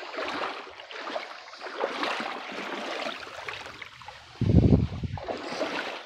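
Shallow creek water splashing and trickling as someone wades through it, with a loud low rumble lasting under a second near the end.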